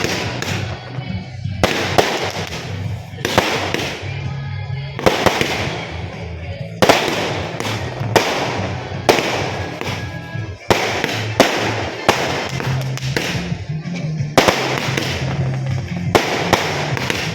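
Firecrackers going off in sharp bangs, one every second or two at irregular intervals, with music playing underneath.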